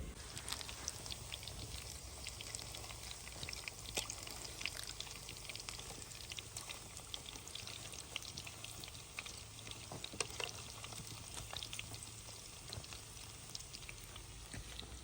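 Tomatoes frying in fat in a pan over a wood fire: a steady sizzle full of small, quick crackling pops.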